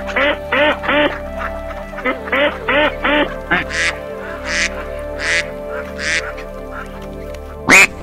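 Duck quacking: two quick runs of about four raspy quacks each, then a slower series of five harsher, higher-pitched calls, and one loud, sharp call near the end.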